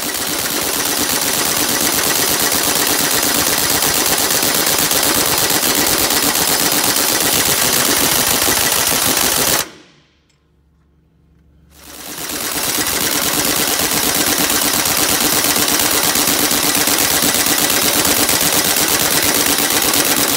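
Impact wrench hammering on the yoke nut of a truck's power divider input shaft through a chrome socket, failing to break the tight nut loose. It hammers in one long run of about ten seconds, stops for about two seconds, then hammers again to the end.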